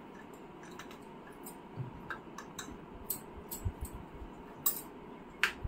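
A rolling pin working over stuffed dough balls, giving faint irregular clicks and soft taps, with a few low thuds around the middle, over a steady low hiss.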